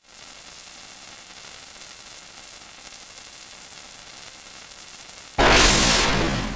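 Steady hiss like static, then a little past five seconds in, a sudden loud rush of noise that fades away over about a second: cartoon sound effects.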